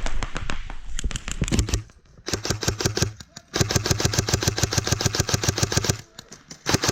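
Airsoft rifle firing full-auto, a rapid even rattle of shots in several bursts, the longest running over two seconds.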